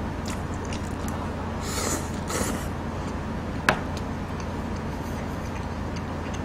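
Close-miked chewing of a mouthful of rice and kimchi, with two short wet mouth noises about two seconds in and a single sharp clink a little past halfway as the small metal rice bowl is set down on the table, over a steady background hum.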